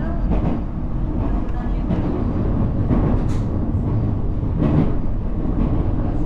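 Steady low rumble inside an Aichi Loop Railway electric train carriage, with a few faint knocks and a short hiss about three seconds in.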